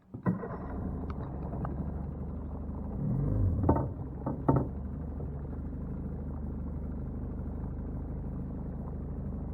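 Boat motor starting up and then running steadily, with a couple of sharp knocks about four seconds in.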